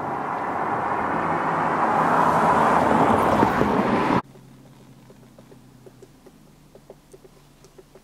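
Loud noise of a passing motor vehicle, rising steadily and then cut off abruptly about four seconds in. After it come faint, light taps, a couple a second.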